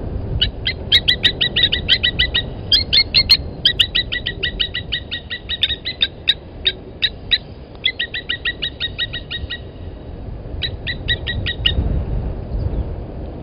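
Blacksmith lapwings giving their metallic 'tink-tink' alarm calls in a rapid run of about seven or eight sharp notes a second. The calling breaks off and then comes back in a short burst near the end.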